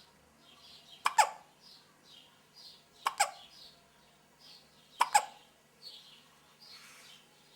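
A baby hiccupping: three sharp hiccups about two seconds apart, each a quick double catch that falls in pitch.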